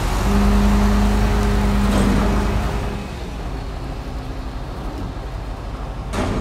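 A 2013 Toyota Land Cruiser GXR's gasoline V6 drives off slowly, with a steady engine hum that drops off after about three seconds as the vehicle moves away.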